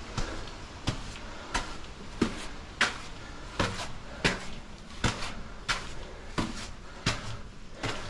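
Footsteps of a hiker walking on a trail at an even pace, about three steps every two seconds.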